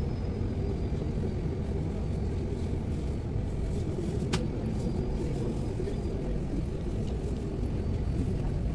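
Steady low rumble aboard a moving boat, the engine's drone mixed with water and wind noise. A single sharp click sounds about four seconds in.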